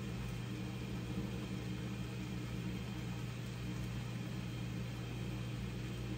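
Steady low hum of a small motor with a faint even hiss.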